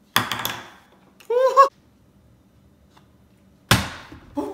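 A partly filled plastic water bottle flipped onto a wooden table lands with a sharp thunk just after the start, a short rising exclamation follows, and a second thunk near the end, after which the bottle stands upright.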